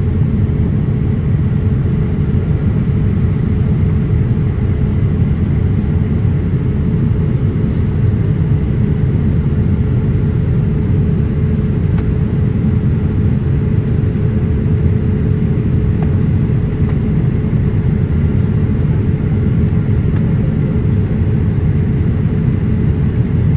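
Steady low cabin drone of a Boeing 787-8 in flight, heard from inside the cabin: engine and airflow noise, with a steady hum running through it.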